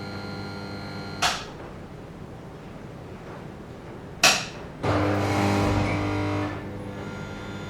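Industrial light switch clicking off, cutting the steady electrical hum of the lights; a few seconds later a second click switches them back on, and they buzz loudly for a moment as they start up before settling into the steady hum again.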